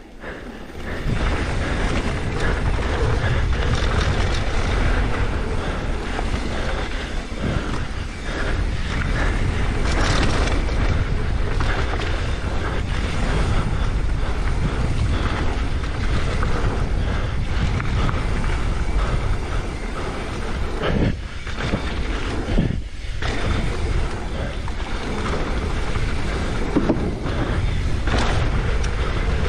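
Mountain bike descending a fast trail: wind buffeting the camera microphone and tyres rolling over dirt and rock, with the bike rattling and knocking over the bumps. The rush picks up about a second in and dips briefly twice near three-quarters through.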